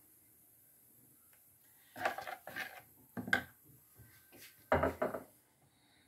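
Metal spoon stirring sauce in a plastic bowl, knocking and scraping against the bowl in a few short, separate strokes starting about two seconds in, the loudest knock near five seconds in.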